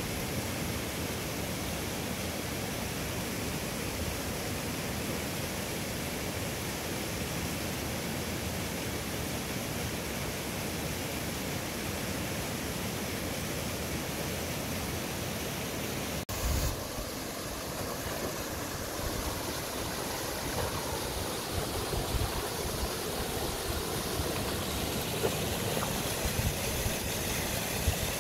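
A small mountain river rushing, a steady hiss of flowing water. The sound shifts abruptly about halfway through, and after that there are occasional low bumps and slightly louder moments.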